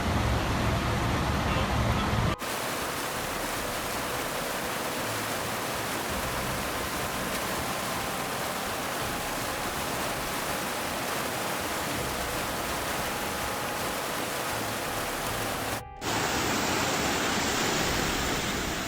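Steady rushing noise of flash-flood water, in three stretches that change abruptly about two seconds in and near the end.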